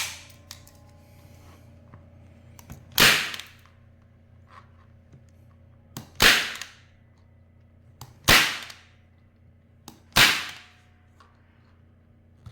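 Unitacker Light Force staple gun firing staples four times, about every two seconds, each shot a sharp snap with a brief fading tail, some preceded by a faint click.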